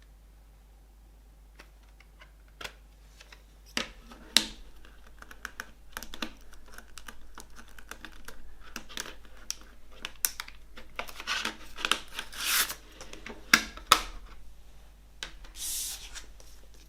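CD album packaging being handled: a run of sharp clicks and taps with rustling of plastic or paper, busiest in the second half, and a short hissing slide near the end.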